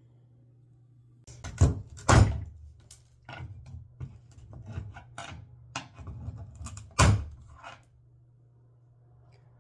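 Irregular knocks, clicks and scrapes of hand work on a shower valve, with louder knocks about one and a half, two and seven seconds in, over a steady low hum.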